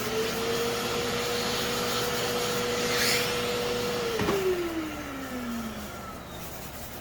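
A small electric motor spins up and runs steadily with a whine. About four seconds in it is switched off with a click and winds down, its pitch falling over a couple of seconds.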